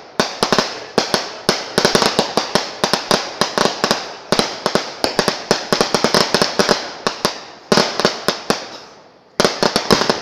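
Strings of firecrackers going off in rapid runs of sharp bangs, several a second, with short breaks between runs and a brief quieter lull a little before the last run.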